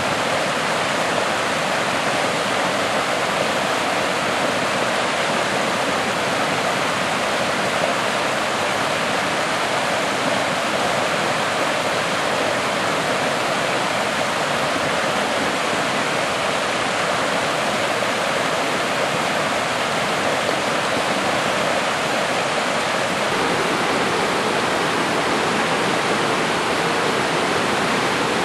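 Swift stream running high after rain, rushing and splashing in small cascades over granite boulders: a steady, loud rush of white water.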